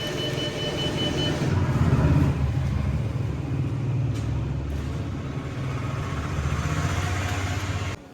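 Steady low machine rumble, with a rapid electronic beeping over the first second or so; it cuts off abruptly near the end.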